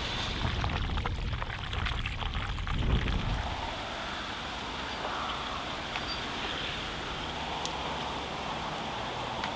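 Steady rain falling on floodwater, an even hiss. A low rumble swells and fades over the first three seconds.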